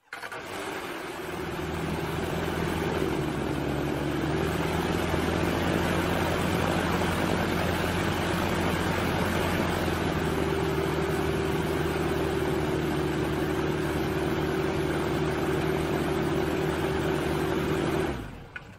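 Rotax 912S flat-four aircraft engine running steadily on the ground, propeller turning, its note stepping up slightly about halfway through. Near the end it is shut off and winds down within about half a second, with a single short knock as it stops: the shutdown 'clunk' the Rotax 912 is known for.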